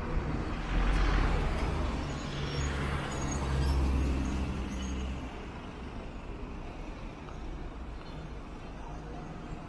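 Street traffic: a heavy vehicle's engine rumbles low and loud as it passes, then fades after about five seconds into steady background traffic noise.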